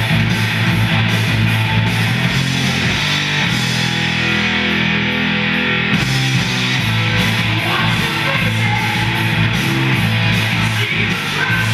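Rock music with electric guitar and drums playing from a vinyl LP on a linear-tracking turntable. The drums drop out for about two seconds near the middle, leaving held low guitar chords, then the beat comes back.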